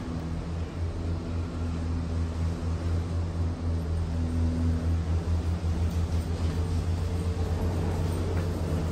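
Steady low rumble and hum inside a moving cableway gondola cabin, with a few faint steady tones over it and a slight fluttering in loudness.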